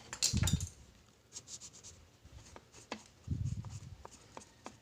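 Light scraping and rubbing with scattered small clicks as the dirty piston block of a nebulizer's compressor is cleaned by hand. There are dull low bumps about half a second in and again just past three seconds.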